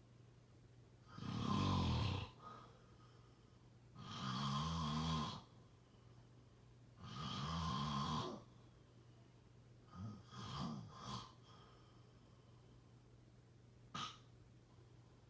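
A person snoring: three long snores about three seconds apart, then three short snores in quick succession around ten seconds in. A single brief click comes near the end.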